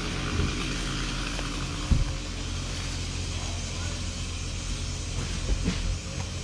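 An engine idling steadily with a low, even hum. A single thump sounds about two seconds in.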